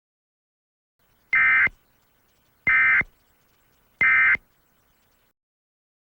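Emergency Alert System end-of-message signal: three short bursts of warbling SAME digital data tones, about 1.3 seconds apart, marking the end of the alert broadcast.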